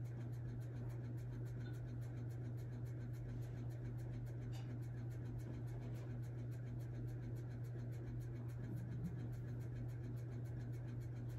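Faint scratchy brushing of a makeup brush sweeping powder bronzer onto the face, over a steady low hum.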